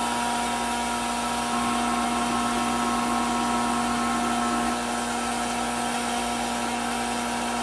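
Early-1980s Hamilton Beach hot air popcorn popper running: its fan motor gives a steady whir with a hum and an airy hiss as it blows popped corn out of the chute.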